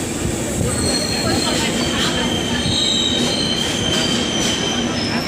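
Uday Express train rolling on the track with a steady rumble and a high, sustained metallic squeal from its wheels, typical of the train coming into a station.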